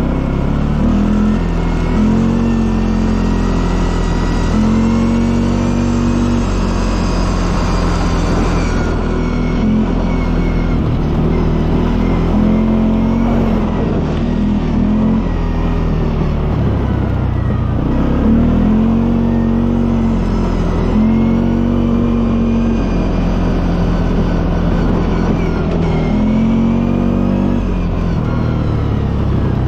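Quad bike (ATV) engine running under way, its pitch rising and falling over and over as the throttle is opened and eased off.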